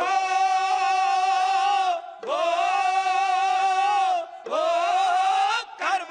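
Dhadi singers, men's voices in unison, singing three long held phrases with the pitch wavering slightly, accompanied by a bowed sarangi.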